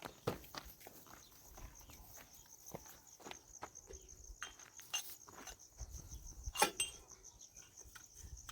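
Scattered light knocks and clinks of hard objects, the loudest about a third of a second in and about six and a half seconds in, over steady high-pitched cricket chirring.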